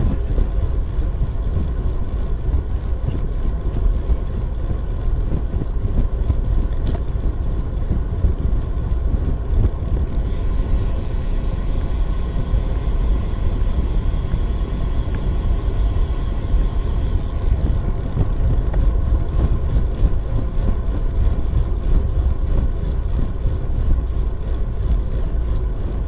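Steady wind buffeting and road noise on the microphone of a camera mounted on a moving road bike, heaviest in the low rumble.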